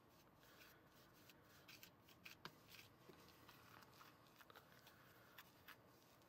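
Faint scraping and light clicking of a small plastic spoon stirring damp powdered frosting mix in a plastic bowl.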